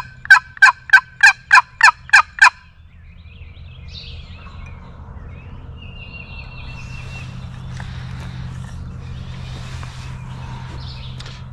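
A quick run of about nine loud, evenly spaced turkey yelps over the first two and a half seconds, then quieter background sound with a faint bird note.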